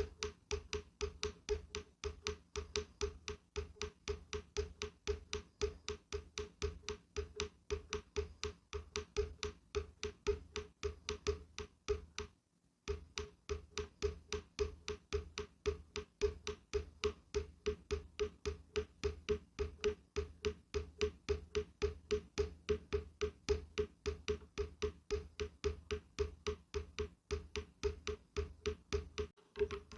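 Rapid, even tapping on a hollow wooden surface, about three knocks a second, each with a short resonant knock tone. The taps stop for about half a second near the middle, then carry on.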